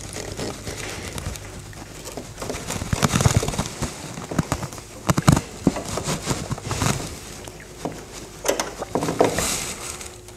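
Irregular small clicks and scrapes as a hand crimping tool closes a metal upholstery spring clip around a coil spring's bottom coil and the jute webbing, with a few sharper clicks near the middle.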